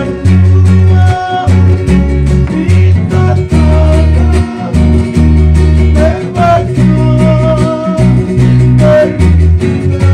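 Live Fijian string-band music played loud: deep electric bass notes moving in a steady rhythm under strummed guitar, with voices singing the melody.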